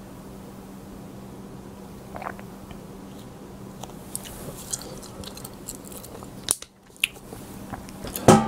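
Close-miked eating: bites and chewing with crisp crackling clicks, over a steady low hum, and one loud sharp sound near the end.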